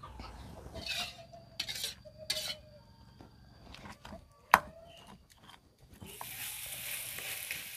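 Short scraping strokes and one sharp knock, the sounds of a stone pestle working chili paste in a stone mortar; then, about six seconds in, a metal spatula stirring sliced jengkol in chili sauce in a wok over steady frying sizzle.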